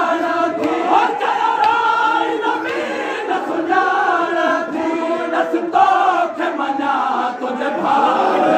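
A large crowd of men chanting a Sindhi noha, a Shia mourning lament, together in long sung phrases.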